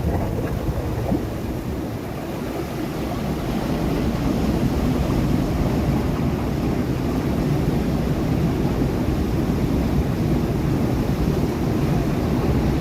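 Sea waves breaking on rocks: a continuous wash of surf that swells about three seconds in and then holds steady.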